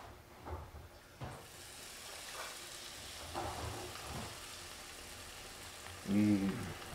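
Beer-battered fish deep-frying in hot oil: a steady crackling sizzle that starts about a second in, as the battered pieces go into the oil.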